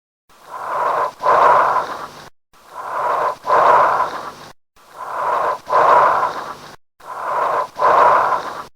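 Bronchial breath sounds: four breaths, each a shorter inspiration followed, after a short silent gap, by a louder and longer expiration.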